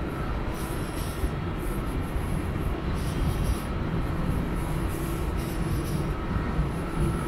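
Steady low rumble of city street ambience, with a faint steady tone above it.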